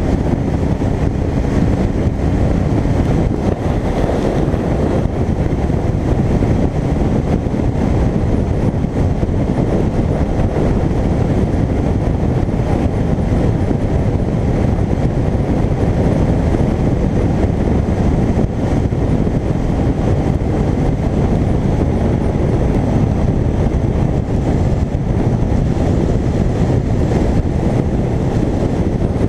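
Motorcycle riding at highway speed, heard from a camera mounted on the bike: wind rush over the microphone mixed with the engine and road noise, a steady, dense low rumble.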